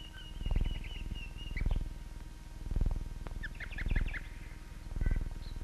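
Birds chirping, with a quick trill about three and a half seconds in. Under them a low, rattling pulse repeats about once a second.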